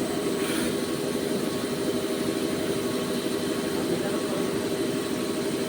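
CNC turning machine (lathe) running with a steady mechanical hum.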